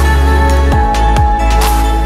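Electronic background music with a heavy, steady bass, low notes sliding downward about twice, and a whooshing swell a little after halfway.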